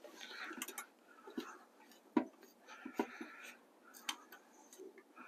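A few faint, sharp metal clicks and taps, spaced irregularly, from a wrench working on an air-brake slack adjuster.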